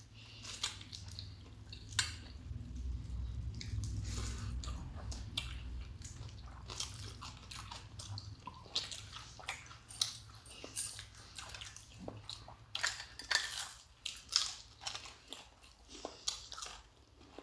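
Close eating sounds: chewing with irregular crisp crunches and short clicks. A low hum runs underneath during the first half.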